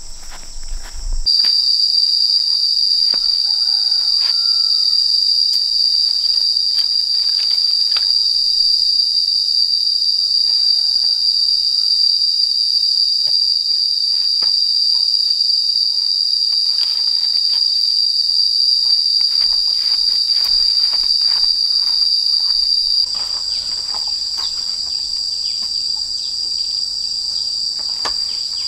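A steady, high-pitched insect chorus that starts about a second in and drops a little in level about 23 seconds in, with a few faint short chirps and light clicks underneath.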